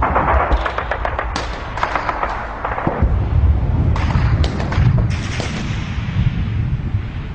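Battle sound effects: a dense crackle of gunfire and explosions over a low rumble, with heavier bursts of shots every second or so.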